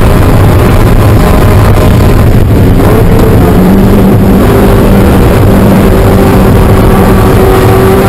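Mazda Miata race car's four-cylinder engine heard from inside the cabin, running hard near 6,000 rpm under loud wind and road noise. About two and a half seconds in, the engine note breaks briefly while braking and shifting down from fourth to third gear. It then holds a steady high-revving note.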